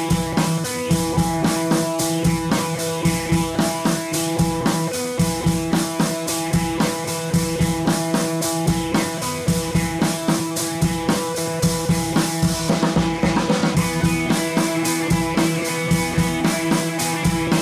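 Background rock music with drums, bass and guitar and a steady beat.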